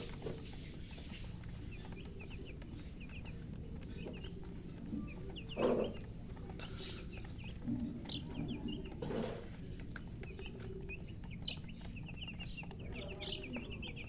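Baby chicks cheeping: many short high-pitched peeps, thickening into a dense run of chirps near the end, with two louder, lower sounds about six and nine seconds in. The uploader puts the chirping down to thirst for water.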